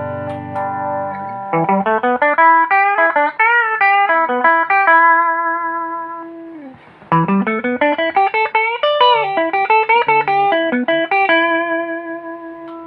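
Century Dark Series guitar played solo: a chord rings out and fades, then two fast runs of single notes climb and fall, each settling on a long held note.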